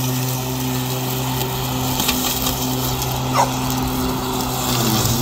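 Ryobi battery-electric riding mower running with a steady hum from its motors. A dog gives one short yelp about three and a half seconds in.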